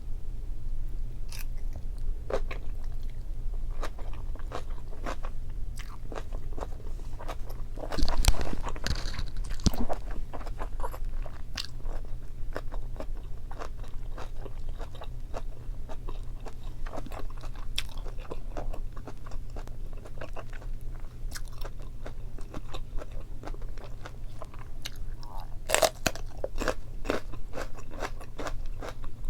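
Close-miked chewing and crunching of boiled meat and Korean kimchi, a steady stream of wet clicks and crackles with louder bites about eight seconds in and near the end, over a steady low hum.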